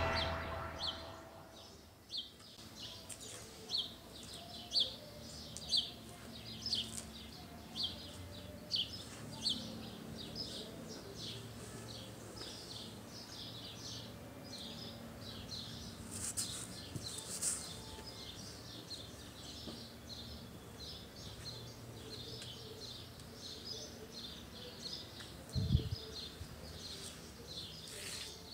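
A small bird chirping over and over in short, high chirps, about one a second, louder during the first ten seconds. A single dull bump near the end.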